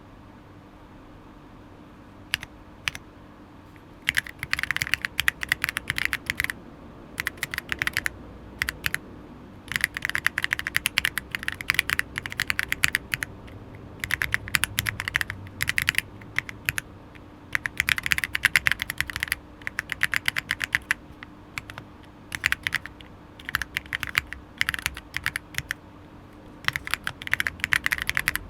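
Typing on a gasket-mount aluminium mechanical keyboard (Monka 6067) with Akko CS Jelly White linear switches. A few single keystrokes come first, then quick bursts of typing with short pauses between them.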